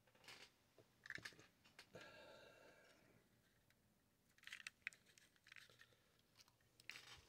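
Near silence with faint scattered clicks and a brief faint scrape about two seconds in: light handling of a television chassis.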